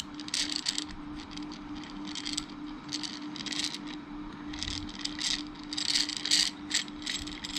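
Hand-cranked bevel-gear hand drill being turned, its gears clicking and rattling in quick, irregular bursts.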